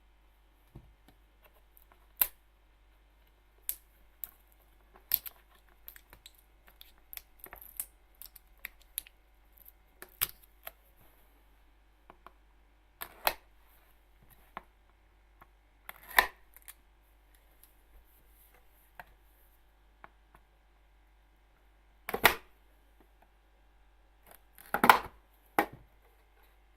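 A headphone box and its packaging being opened and handled by hand: scattered clicks, taps and short rustles, with a few louder scrapes in the second half.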